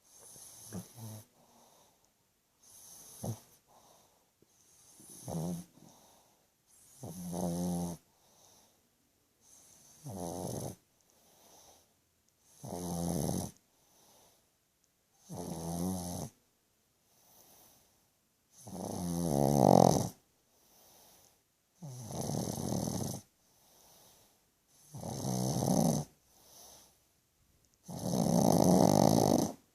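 Pug snoring loudly in its sleep, one snore every two and a half to three seconds with quiet breaths between, the snores getting bigger after the first few.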